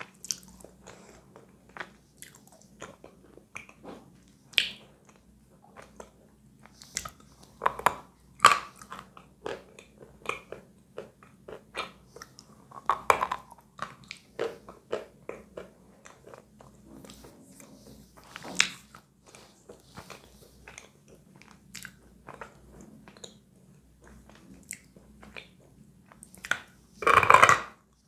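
A person biting and chewing a lump of chalk close to the microphone: irregular sharp crunches and crumbly chewing, with a few louder bites and one long, loud crunch near the end.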